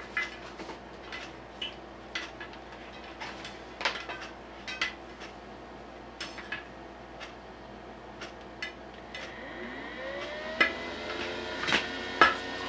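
Small incubator cooling fan spinning up with a rising whine about nine seconds in, then running steadily as the incubator powers up. Before that, scattered light clicks and knocks.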